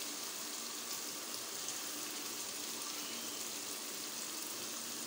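Masala and oil sizzling steadily in a wok around raw mutton koftas, which are being fried in the gravy.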